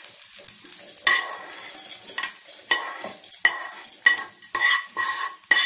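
A spatula scraping fried masala (onion, green chillies, cumin and coriander seeds) out of a pan into a mixer jar for grinding. It makes about ten sharp scrapes and clinks, roughly two a second, each with a brief ringing tone.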